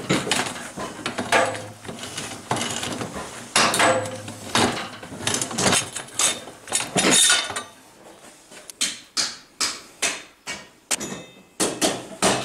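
Thin steel strip being rolled into a cone on a homemade slip roller with steel-tube rollers: irregular metallic clanks and scrapes, thinning out in the last few seconds to separate sharp clanks, two or three a second.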